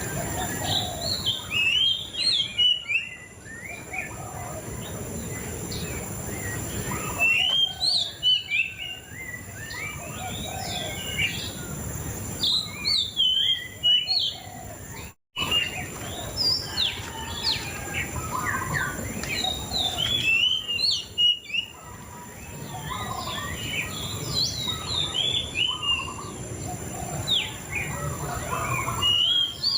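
Murai cacing songbird singing in repeated phrases of fast, sharp, warbling chirps, each phrase a second or two long with short pauses between. A faint steady high whine runs underneath, and the sound cuts out completely for a moment about halfway through.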